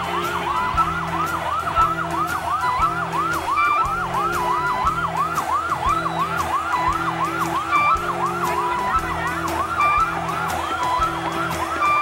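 A fast rising-and-falling yelp siren, about three cycles a second, over music with a steady beat and a bass line.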